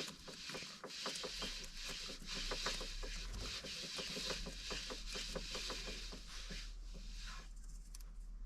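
Nylon winch line being pulled off an ATV winch spool by hand: a continuous rasping rustle of rope with many small irregular clicks, easing off near the end.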